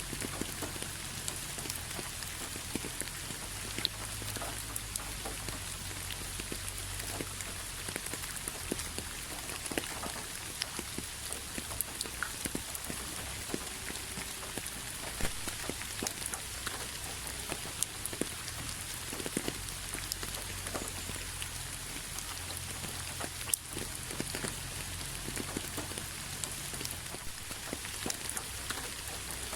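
Steady rain falling on a hard surface, a continuous hiss with many separate drops clicking and pattering, over a low rumble.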